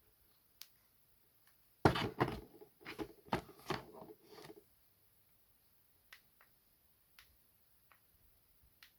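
Hands handling a dash camera and its packaging: a burst of rustles and knocks about two seconds in, lasting about three seconds, then a few separate light clicks.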